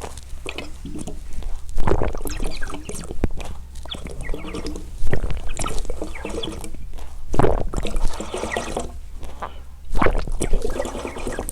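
A person drinking water close to the microphone, with a series of wet gulps and swallows at irregular intervals of a second or two.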